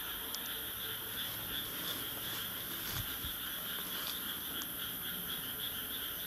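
Night insects chirring in a steady, high-pitched chorus that pulses slightly. A few faint clicks, and a short low thump about three seconds in.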